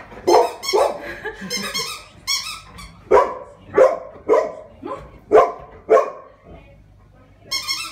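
Golden retriever barking repeatedly at its play partner, about one bark every half-second to second. High squeaks sound in the first two seconds and again near the end.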